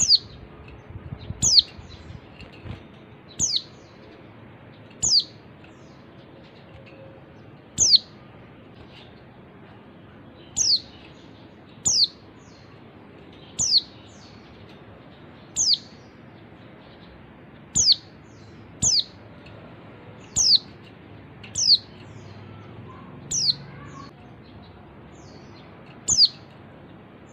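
Female white-eye (pleci) calling: a short, high note that slides down in pitch, repeated about fifteen times at one- to three-second gaps. It is a lure call meant to set male white-eyes singing.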